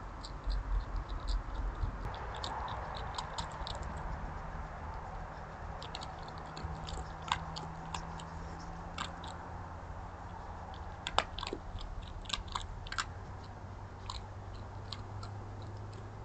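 An animal chewing and crunching food: irregular crisp crunches and bites, coming in clusters with short pauses between.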